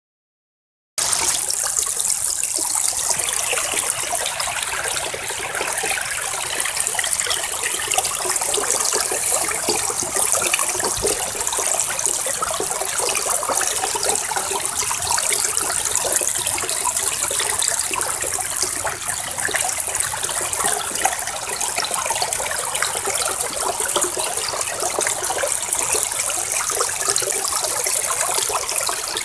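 Stream water rushing steadily through a sluice box over its riffles and mat, starting about a second in.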